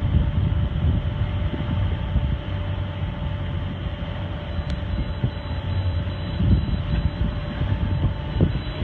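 Wind buffeting the microphone and water rushing past the hull of a sailboat under way, a gusty low rumble with a faint steady hum underneath.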